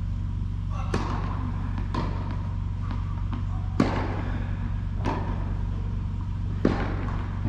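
Tennis ball knocks in an indoor hall: two light bounces, then sharper racket hits, about five knocks a second or more apart, the loudest about four seconds in and near the end. A steady low hum runs underneath.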